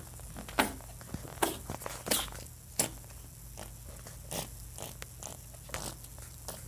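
Pet rabbit wheezing: short noisy breath sounds about every three-quarters of a second, some much louder than others, the sign of a breathing problem.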